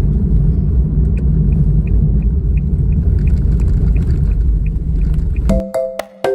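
A loud, steady low rumble with faint, evenly spaced ticks about three times a second. It cuts off suddenly near the end, where chiming music begins.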